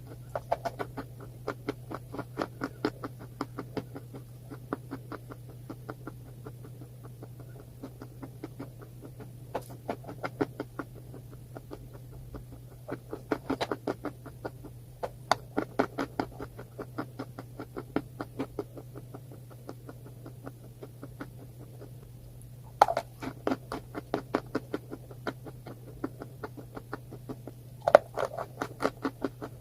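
Crunchy food being chewed close to the microphone: rapid runs of sharp crunches, many a second, in bursts with short pauses between, over a steady low hum.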